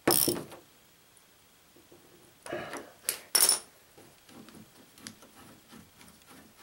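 Small metal hand tools clinking and clattering as they are handled and set down on the floor: one sharp ringing clink at the start, two or three more about two and a half to three and a half seconds in, then faint light clicks.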